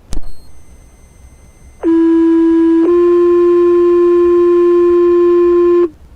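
Two-tone sequential fire-department paging tones over the dispatch radio: a click as the channel keys up, then a low steady tone held for about a second, switching to a slightly higher tone held for about three seconds. This is the page-out alert that sets off the volunteer firefighters' pagers.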